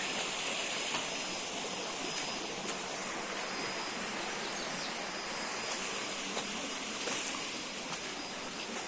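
Steady rushing of running water from a stream, with a faint steady high tone above it and a few light ticks.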